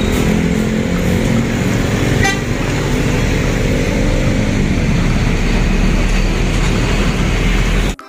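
TransJakarta city bus pulling in to a stop with its engine running, among city traffic. A steady droning tone runs through the first half and then fades, and a brief high ticking comes about two seconds in.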